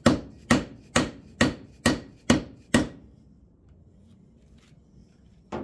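A hammer tapping a socket that drives a new freeze plug into a Jeep 4.0 cylinder head, metal on metal. Seven sharp, even taps about two a second, then a pause and one more tap near the end. These are light starting taps to center the plug and get it gripping before it is driven home.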